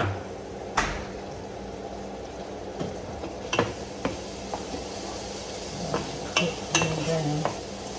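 Ground beef frying in a pan with a steady sizzle, stirred with a utensil that clacks and scrapes against the pan a few times.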